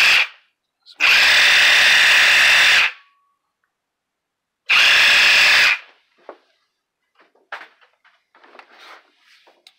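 Old 18V DeWalt cordless drill running at full speed on a 20V lithium-ion battery through a DCA1820 adapter: a steady run of about two seconds that stops abruptly, then after a pause a second run of about a second. Faint clicks and handling follow near the end.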